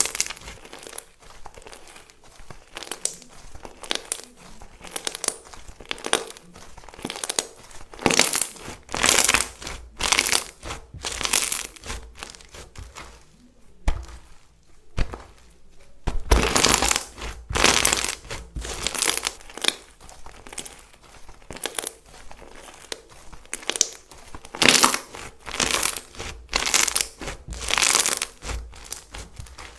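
Crunchy slime being squeezed, poked and stretched by hand, giving irregular bursts of crackling and crunching, with a quieter stretch about halfway through.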